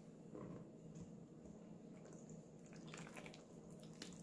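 Near silence, with faint soft squishing and rustling as a bare hand mixes flour into wet dough ingredients in a stainless steel bowl.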